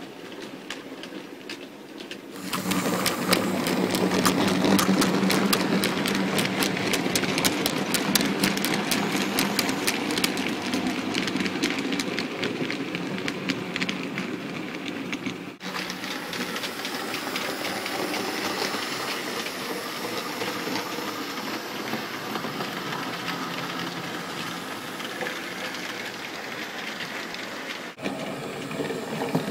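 OO gauge model train running on layout track: a steady electric motor hum with rapid clicking of the wheels over rail joints, which gets louder a couple of seconds in.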